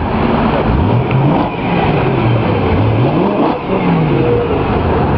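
BMW E92 M3's 4.0-litre V8 being revved several times, the engine pitch rising and falling with each blip of the throttle.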